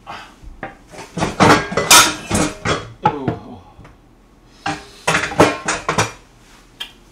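Plates clattering and clinking as they are handled and set down, in two bursts of knocks with a short ringing after some of them, the first from about one to three seconds in and the second around five to six seconds.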